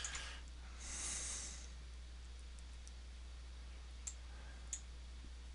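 A few sharp computer clicks, spread out, with a soft breathy exhale about a second in, over a steady low electrical hum.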